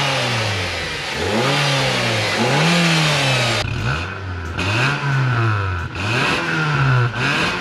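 Nissan NV200 van's four-cylinder engine being revved about six times in a row, each rev climbing in pitch and falling back.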